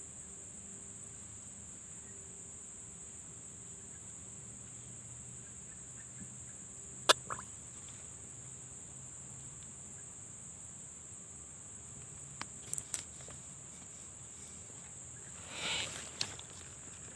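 Steady high-pitched chorus of insects such as crickets, with a few sharp clicks about halfway through and a brief rustle near the end.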